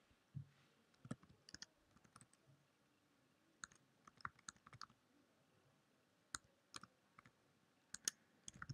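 Faint, scattered clicking of computer keyboard keys and a mouse, in small clusters of two or three clicks, as numbers are typed into one form field after another.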